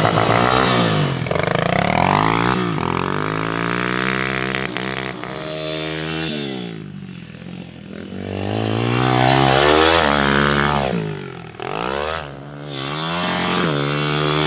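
Bored-out Yamaha pit bike's small four-stroke single-cylinder engine being ridden hard, its pitch climbing and dropping back several times as it is accelerated and eased off.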